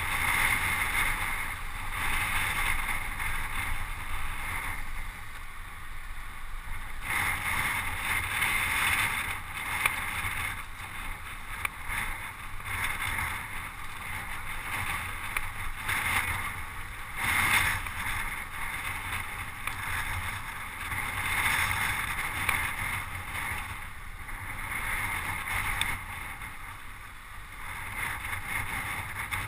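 Steady rushing of wind and road noise from riding a road bicycle at speed in a group, with wind buffeting the microphone. It swells and eases every few seconds.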